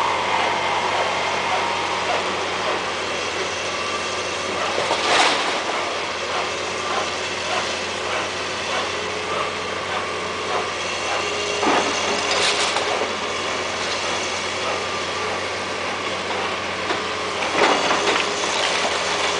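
Long-reach demolition excavator's diesel engine running steadily while brick masonry is pulled down, with three loud crashes of falling brick and rubble, at about five seconds, about twelve seconds and near the end.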